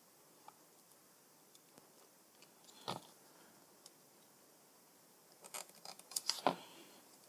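Small parts being handled on the bench: a faint click about three seconds in, then a quick cluster of clicks and light knocks near the end, as of plastic cable-connector parts being fitted together.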